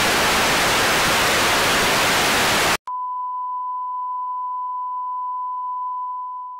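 Loud hiss of analogue TV static for almost three seconds, cutting off suddenly into the steady single-pitch beep of a colour-bar test tone, which fades away near the end.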